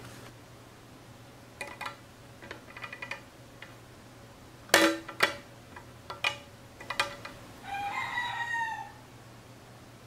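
Sharp clicks and knocks of a mini-USB plug being worked out of an Arduino Nano board on a glass tabletop, the loudest pair about five seconds in, over a steady low hum. Near the end a rooster crows once, for about a second.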